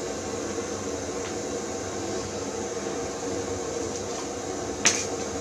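Gas-cartridge blowtorch running with a steady hissing flame, being used to light damp firewood in a brick fireplace. A single sharp knock about five seconds in.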